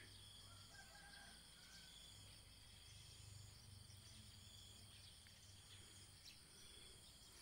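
Near silence: a faint steady high-pitched drone over a low hum.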